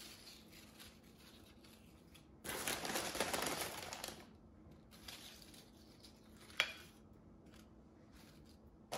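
Doritos chip bag crinkling for about two seconds as a hand reaches in for more chips, with faint rustles of tortilla chips being set on a plate and a single sharp click near the end.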